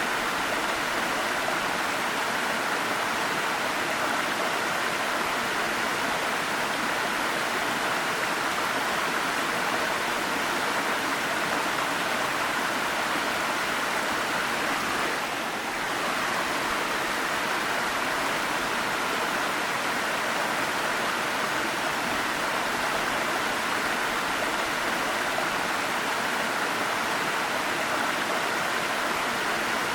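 Waterfall: a steady, even rush of falling water, with a brief slight dip in level about halfway through.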